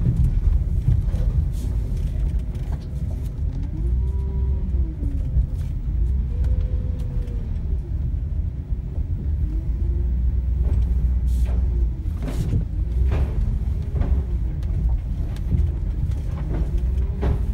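A vehicle's engine running low and steady, heard from inside the cab while driving slowly and turning through a parking lot, with a fainter tone that rises and falls several times and a few sharp clicks.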